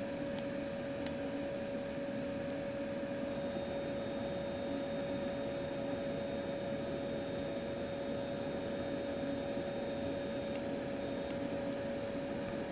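Yeswelder MIG-250 Pro welder switched on: a steady electrical hum with a constant whine, from its running cooling fan and wire feed motor feeding wire through the gun. A faint higher whine joins about three seconds in and stops a couple of seconds before the end.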